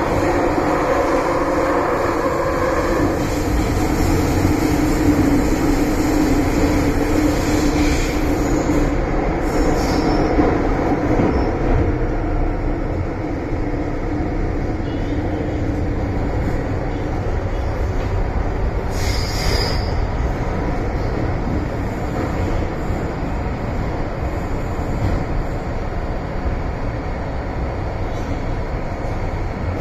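MTR Island Line M-Train running between stations, heard from inside the carriage: a steady rumble of wheels and running gear, with a motor whine that fades over the first dozen seconds or so, and a brief high squeal about two-thirds of the way through.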